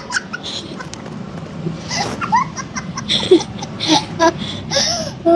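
Children laughing and giggling in short breathy bursts, about once a second, with a few brief high vocal squeaks in between.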